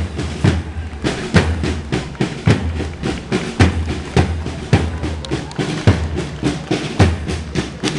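Marching band playing for a parade: a bass drum struck steadily about once a second, with snare drum strokes and rolls in between.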